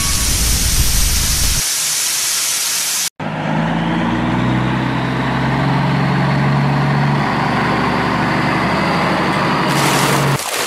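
A loud hissing rush with a low rumble that cuts off abruptly about three seconds in. It is followed by a truck engine sound effect running steadily with a low hum, which stops shortly before the end.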